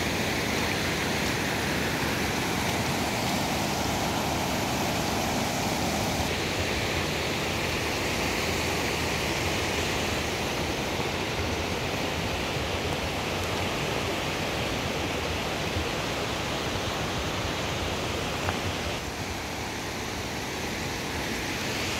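Creek water rushing steadily over rocks and small ledges, an even hiss that shifts slightly in tone about six seconds in and again near the end.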